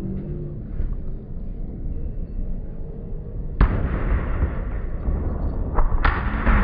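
Fireworks exploding: a sharp bang about three and a half seconds in, followed by a rumbling crackle, then two more bangs in quick succession near the end.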